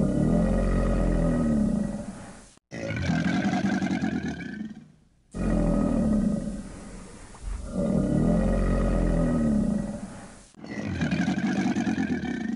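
A deep, growling animal roar sound effect, dubbed over the crocodile. It comes about five times in a row, each roar a couple of seconds long with short breaks, and the same roar repeats unchanged as a loop.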